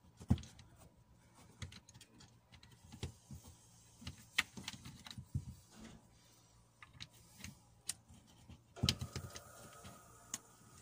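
Scattered small plastic clicks and knocks as LED bulbs are pushed and twisted into the bayonet sockets of a car tail-light's plastic bulb holder, with a denser run of clicks about nine seconds in.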